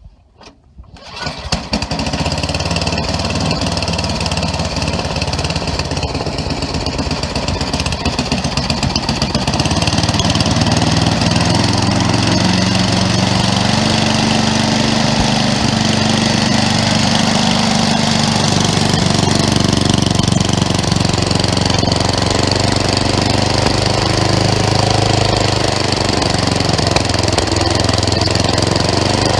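Craftsman 11/30 snowblower engine catching about a second in and then running steadily, growing a little louder and faster about ten seconds in. Its high-speed screw has just been backed off a little because the engine was revving too high.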